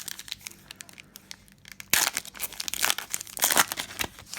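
Foil trading-card pack wrapper being torn and crinkled by hand, in a run of crackling bursts, loudest about two seconds in and again near three and a half seconds.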